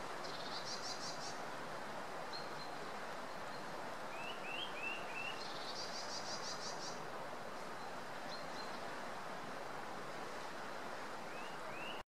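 Eurasian nuthatch calling: two bursts of rapid high trilled notes, a run of short upward-hooked whistles about four seconds in and two more near the end, over a steady background hiss.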